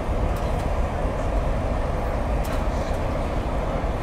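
Steady rumble of an Amtrak passenger train running along the track, heard from inside the coach, with a few faint light ticks.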